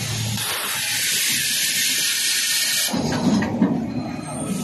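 Injection molding machine working through its cycle: a loud steady hiss for about three seconds. Then the hiss drops away and a lower mechanical rumble with a couple of sharp clunks comes in as the mold opens and the robot arm drops in. A short hiss returns near the end.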